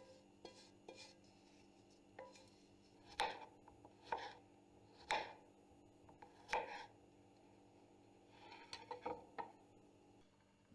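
Kitchen utensils at work: sharp knocks and clinks, with four louder strokes about a second apart in the middle and a quick run of small clicks near the end, over a faint steady hum.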